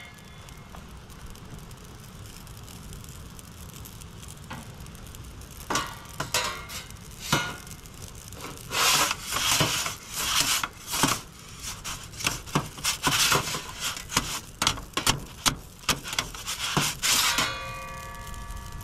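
Perforated metal pizza peel scraping in irregular strokes across the baking stone of an Expert Grill 15" charcoal pizza oven as it is worked under the pizza to turn it, starting about six seconds in. A few steady tones start near the end.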